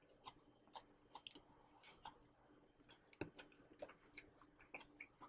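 Close, faint mouth sounds of someone chewing crunchy dry-fried green beans: irregular soft crunches and clicks, with one sharper click about three seconds in.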